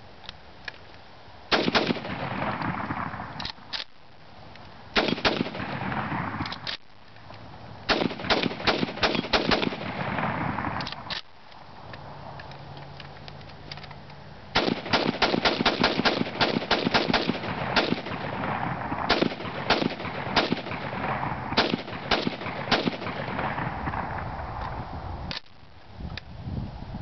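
Krinkov-style short-barrelled AK carbine fired without its flash hider: repeated sharp gunshots, each trailing an echo, in stop-start strings with short pauses between them, some shots spaced out and two quick runs of rapid fire. The magazine was prone to jamming.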